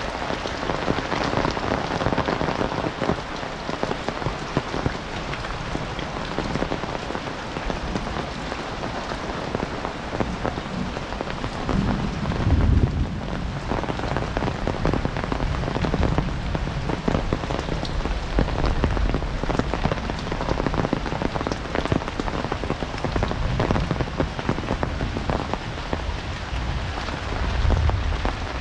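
Heavy rain falling steadily, with a low rumble about twelve seconds in and again near the end.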